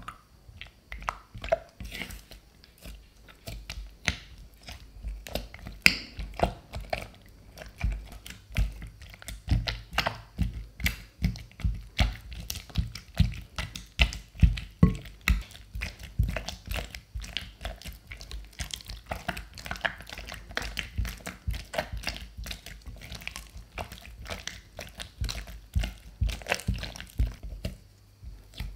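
Silicone spatula mixing a raw egg into cooked churro dough in a glass bowl. It makes a dense, irregular run of wet squelches, slaps and clicks, several a second, as the dough is folded and pressed against the bowl.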